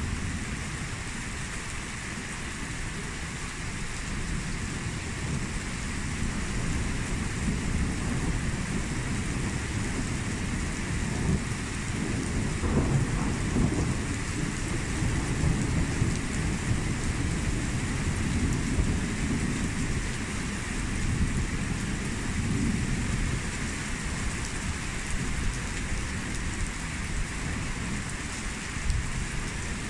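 Thunderstorm: steady heavy rain falling and splashing on wet surfaces, with low thunder rumbling underneath that swells loudest about halfway through.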